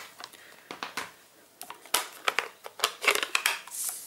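Clicks and taps of hard plastic craft supplies handled on a tabletop: a small clear stamp on an acrylic block and an ink pad case being picked up, moved and set down. A few faint ticks at first, then a quick run of sharper clicks from about a second and a half in.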